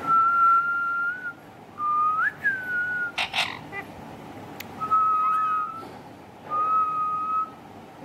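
Whistling: four clear held notes at about the same pitch, the second sliding up and then stepping down, with a short harsh rasp about three seconds in.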